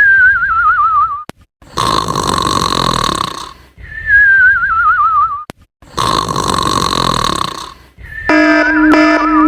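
Cartoon snoring sound effect: a loud rasping snore breath alternating with a wobbly whistle that falls in pitch, repeated about every four seconds. Near the end a buzzy, horn-like tone starts up and pulses under the whistle.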